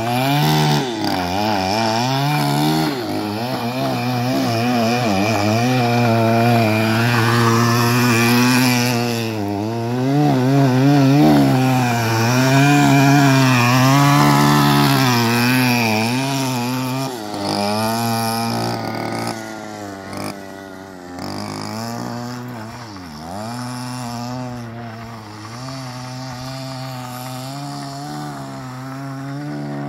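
Small go-kart engine running hard, its pitch rising and falling again and again as it revs up and eases off through the turns.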